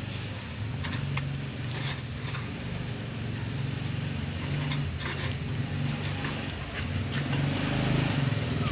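Steady low engine-like rumble with a few sharp metallic clicks and clinks from a wire cage as macaques climb on it.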